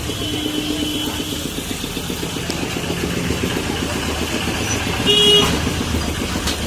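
Street traffic rumbling steadily, with one short, loud vehicle horn honk about five seconds in and a fainter horn tone near the start.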